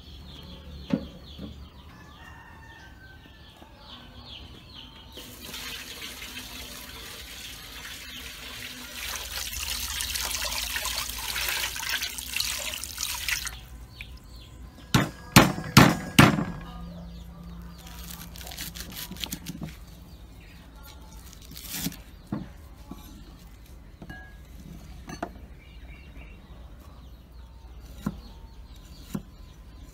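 Kitchen work on a pig's head: water runs from a tap for about eight seconds, then four or five loud knocks come in quick succession, followed by scattered lighter clicks and knocks of handling.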